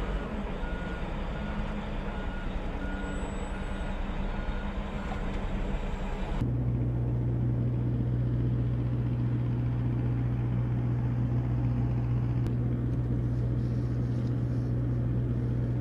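A vehicle's reversing alarm beeping at an even pace over engine noise; about six seconds in it cuts off abruptly and a steady low engine drone takes over.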